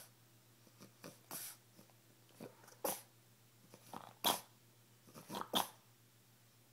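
French bulldog making a handful of short, breathy huffs, about one every second or so, as she asks to be let up into a lap.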